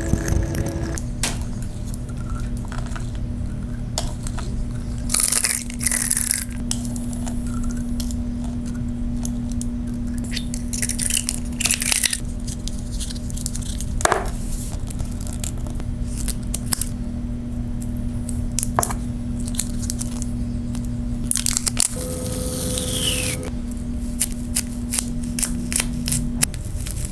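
Double-sided silicone nano tape being stretched, peeled and pressed into a ball: sticky tearing and crackling with scattered clicks, and a few brief louder bursts, over a steady low hum.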